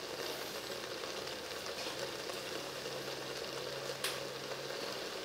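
Lemongrass and turmeric spice paste sizzling as it fries in oil in a pot, a steady bubbling hiss. A single sharp click about four seconds in.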